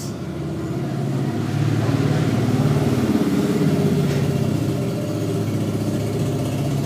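A motor vehicle engine running steadily, growing louder over the first few seconds, then holding.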